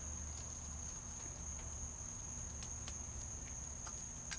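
A steady high-pitched insect trill, like a cricket, with a few sharp crackles from sticks burning in a small wood-burning stove.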